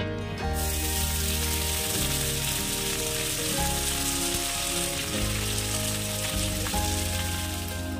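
Chopped note shak (amaranth greens) sizzling in hot oil in a wok as it is tossed. The sizzle starts about half a second in, under steady background music.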